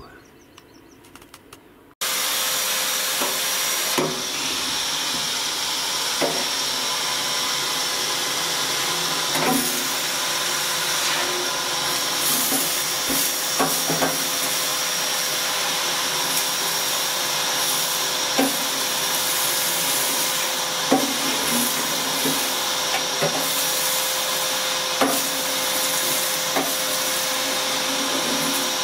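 Vacuum cleaner switched on about two seconds in, then running steadily with a constant whine as it sucks loose rust and dust out of a steel bow thruster compartment, with occasional sharp knocks along the way.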